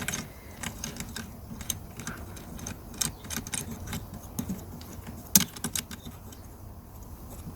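Small plastic and metal clicks and taps as a cable hook is screwed by hand onto the bolt of a lawnmower handle, with one sharper knock about five seconds in.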